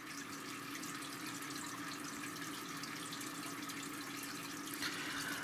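Steady hiss with a faint low hum underneath, a little stronger near the end: background room noise between speech.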